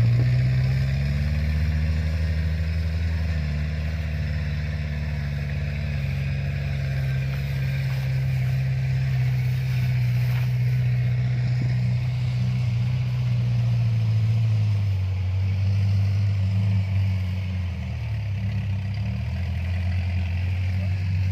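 Kubota DC-70 combine harvester's diesel engine running under load, a steady low drone. Its pitch rises slightly just after the start, then dips and recovers a couple of times in the second half.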